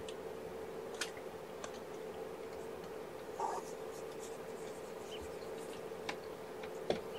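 Kittens and their mother cat moving about in a fleece-lined pen: scattered soft clicks and scratches over a steady hum, the sharpest click near the end.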